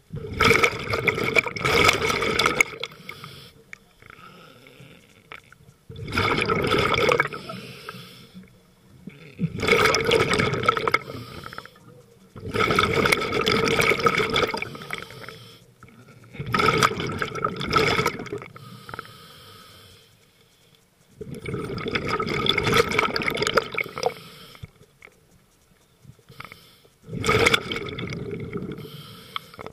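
Scuba diver breathing through a regulator underwater: seven loud bursts of exhaled bubbles, one every three to five seconds, with quieter stretches between.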